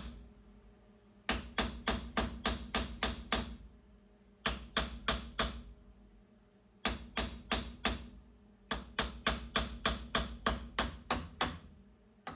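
Hammer tapping on the parts of a Dana 30 front locking hub to work a stuck piece out straight. The blows come in four quick runs of about four to five taps a second, each one ringing briefly, with short pauses between runs.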